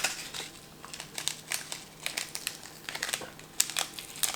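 Plastic food packaging crinkling as it is handled, in irregular sharp crackles.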